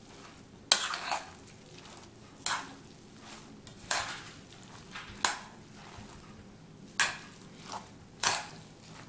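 Metal spoon stirring a thick batter of grated pumpkin and flour in an enamel bowl. About seven sharp clinks and scrapes sound as the spoon strikes the bowl's side, one every second or two, with soft mushy stirring between them.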